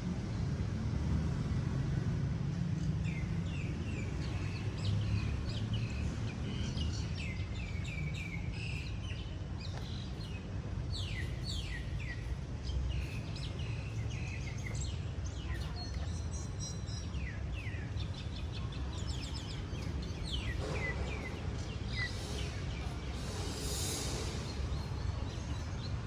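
Small birds chirping in quick runs of short, falling calls over a steady low outdoor rumble. A brief high hiss comes a few seconds before the end.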